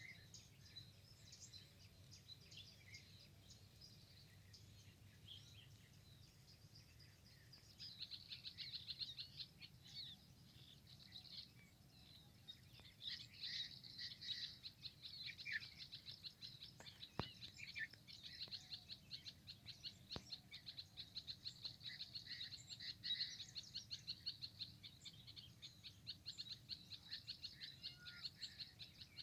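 Many small birds chirping and twittering, thickening into a dense, rapid chatter about eight seconds in, over a faint low background rumble.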